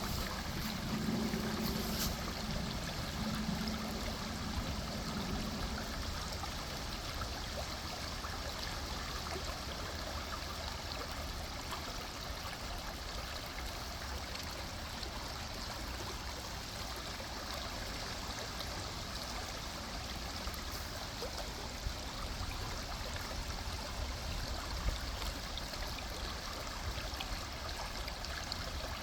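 River water flowing, a steady rushing and gurgling. A faint low hum sits under it for the first few seconds.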